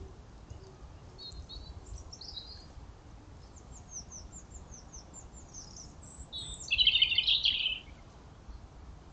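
Woodland songbirds calling and singing with short high chirps and whistles, broken by one loud, fast, dense burst of song about six and a half seconds in that lasts just over a second. A low steady rumble runs underneath.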